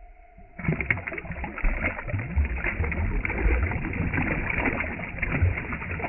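A hooked fish thrashing at the surface right beside a kayak, water splashing and churning continuously. The splashing starts suddenly about half a second in.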